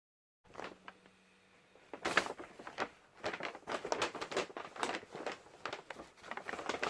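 Shopping bags and packaging rustling and crinkling as purchased items are handled, in quick irregular crackles from about two seconds in. The first half second is dead silent.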